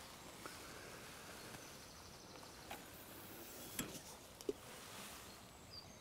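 Quiet outdoor background with a few faint clicks and knocks in the middle seconds: handling noise from a fishing rod held in the hand.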